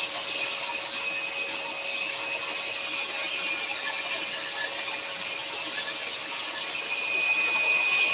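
Axminster Trade AT406SS scroll saw running, its spiral blade cutting through a thin wooden panel: a steady, mostly high hiss with a faint whine.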